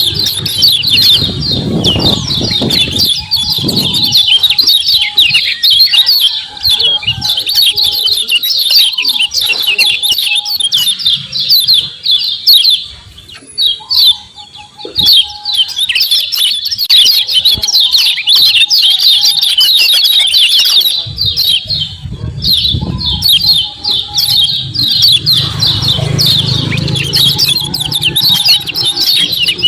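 Kecial kuning white-eyes giving a fast, dense 'ciak ciak' chatter of high chirps, with a short break about halfway through. This is the excited calling that bird keepers play to rouse their own birds to sing.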